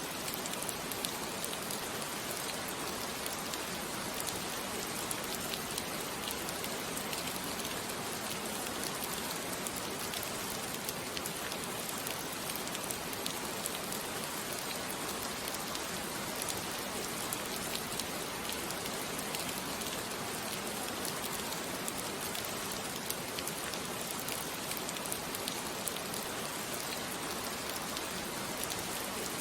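Steady rain falling, an even hiss with a scattering of fine drop ticks.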